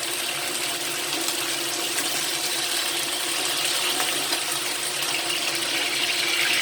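Pork spare ribs sizzling steadily as they pan-fry in oil.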